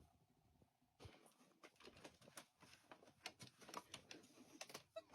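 Near silence with faint, irregular light taps and ticks from about a second in.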